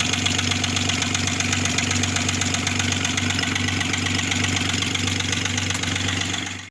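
Opel Omega B's V6 engine running steadily with a knock, which the owner takes for a knocking piston. The sound cuts off suddenly near the end.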